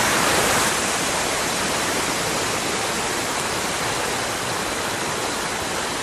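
Steady rush of a waterfall and its stream, running in heavy flow after recent heavy rain.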